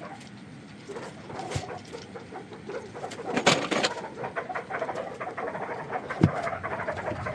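Scattered light clicks and knocks of timber and decking screws being handled and set by hand, with a sharper knock about three and a half seconds in and another about six seconds in.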